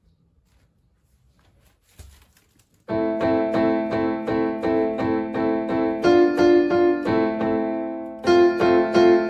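A faint click about two seconds in, then about three seconds in a Casio WK-3800 electronic keyboard starts playing a tune of evenly repeated notes over held chords. The keyboard is working again after its power-button repair.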